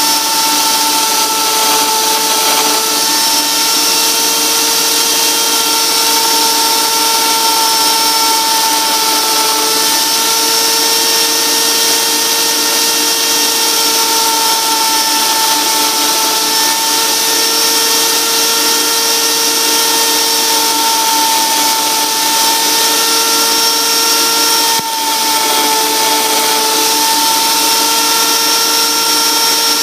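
Die grinder with a router bit running at a steady high whine while a homemade lathe spins a Corian blank. A lower tone under it drops out briefly every couple of seconds, and the sound dips for a moment near the end.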